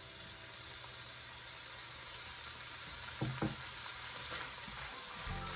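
Sweet corn, carrots and peas sizzling steadily as they fry in oil in a wok, with two light knocks about three seconds in.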